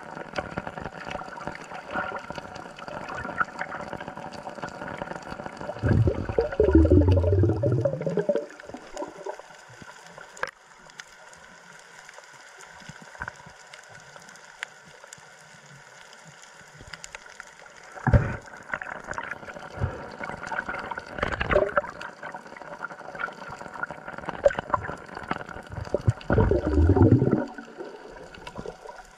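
Water sloshing and gurgling, with two louder, longer rushes about six seconds in and near the end, and a few sharp knocks in between.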